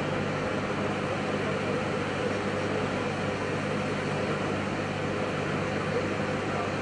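Steady engine drone with an even hiss behind it, holding at one pitch and level throughout.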